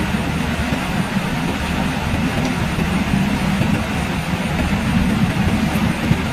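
Steady heavy rain heard from inside a house: an even hiss over a deep, constant rumble.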